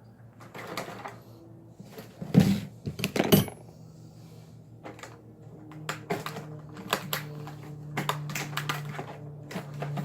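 Metal tools and brass hose fittings clinking and clanking as they are handled, with two louder metallic clanks about two and a half and three and a half seconds in, and lighter clicks after.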